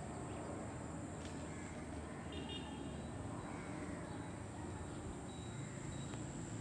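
Steady outdoor background noise with no clear single source, and a brief faint high-pitched tone about two and a half seconds in.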